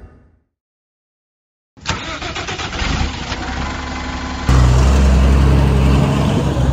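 Music fades out and there is a moment of silence. Then a bus engine comes in abruptly and runs. About halfway through its low rumble becomes louder and steady.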